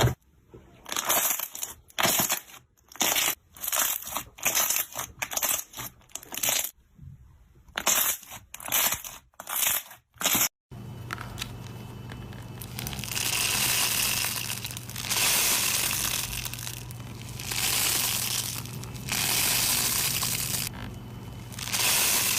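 Slime being pressed and squeezed by hand: a run of short crackling, crunching bursts, then after a cut about ten seconds in, slower swelling squishes over a steady low hum.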